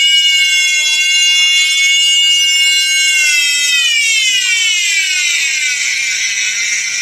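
Ryu RMT6 oscillating multi-tool running unloaded with a high, steady electric whine, which then falls smoothly in pitch over about three seconds as the motor slows.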